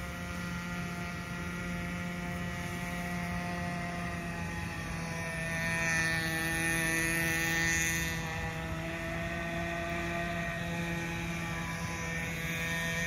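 Nitro RC boat's small two-stroke glow-fuel engine running at high revs in a steady, high-pitched whine. It swells a little louder about six seconds in, then eases back.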